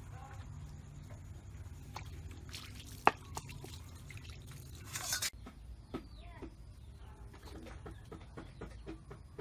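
Water sloshing and dripping as hands wash fish in a plastic basin, with a single sharp knock about three seconds in. Around five seconds in, the basin's water is poured out onto the ground in a short splashing rush.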